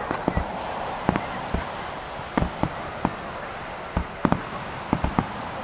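Starmine fireworks barrage: aerial shells bursting in a rapid, irregular string of sharp bangs, about a dozen in five seconds.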